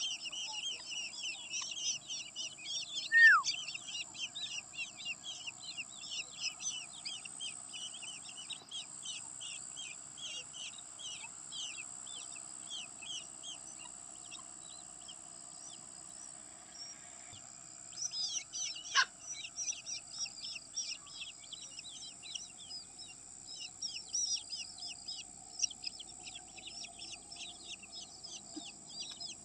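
Baby birds begging to be fed: a dense run of rapid, high chirps that stops for a few seconds midway and then resumes. Twice, a single louder whistle falls in pitch.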